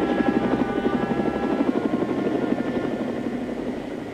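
Model helicopter's rotor sound, a rapid beating with a whine above it, winding down and fading as the rotor slows. A low hum underneath stops about a second and a half in.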